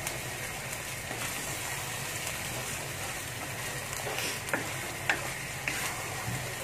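Blended chili paste and sliced beef frying in oil in a wok: a steady sizzle while a wooden spatula stirs, with a few light knocks of the spatula on the pan in the second half. The paste is being sautéed until the oil separates and rises to the surface.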